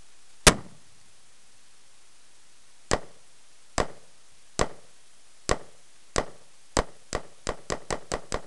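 A single loud blast of Tannerite exploding inside a pumpkin, followed by a string of AR-15 rifle shots. The shots come about a second apart at first and speed up to several a second near the end.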